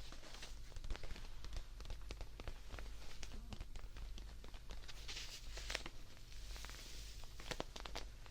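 Close-miked ASMR handling of a plush teddy bear: an irregular run of soft clicks and scratches, with two short hissing rustles around the middle.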